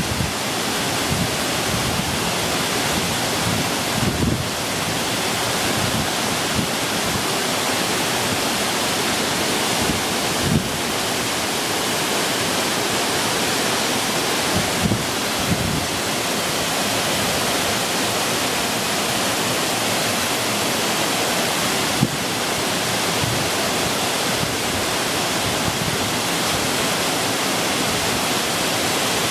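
Shizuku Falls, a small waterfall, rushing steadily. A few brief low thumps hit the microphone along the way.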